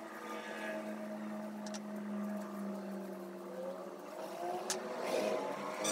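A steady motor-like drone that holds one pitch, rising slightly about four to five seconds in, with two light clicks.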